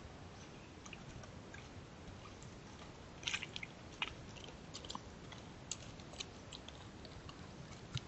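White-tailed deer stepping across loose flat creek-bed stones: scattered sharp clicks and crunches of hooves on rock, a cluster of them about three to four seconds in, over a steady hiss.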